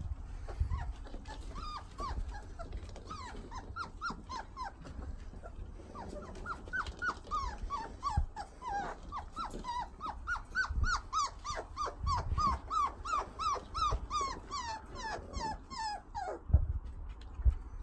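Black Labrador Retriever puppies yipping and whining in quick runs of short cries that fall in pitch, with some growling as they play with toys. A few low thumps, the loudest near the end.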